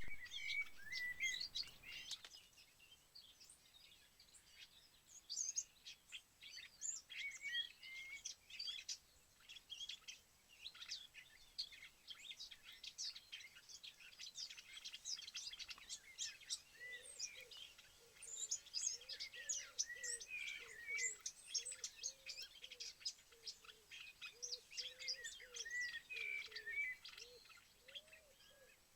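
Several songbirds chirping and singing together in a busy chorus of short high twitters and trills. About halfway through, a much lower bird call joins, repeating a short arching note over and over.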